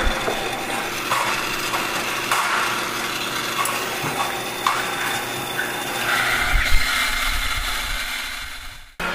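Busy indoor-market background noise: a steady din with scattered clatter and knocks and a brief low rumble, fading out near the end.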